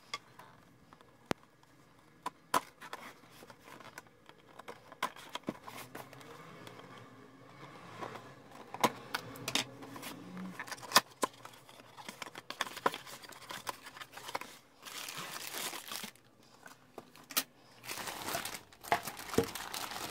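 A cardboard figure box handled and opened by hand, with scattered sharp taps and clicks from the flaps and contents. In the last third, clear plastic packaging bags crinkle loudly.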